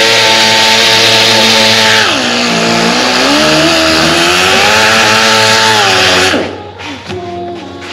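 Electric angle grinder with an abrasive disc grinding down welds on steel tubing: a harsh grinding hiss over the motor's whine. The whine sags about two seconds in as the disc is pressed harder into the metal, climbs back up, and the grinder stops about six seconds in.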